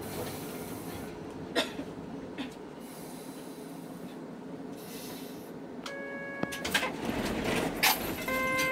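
Low rumble inside a Hankai Tramway streetcar, with a sharp click about one and a half seconds in. An electronic buzzer tone sounds for about half a second around six seconds in, and a second one starts near the end.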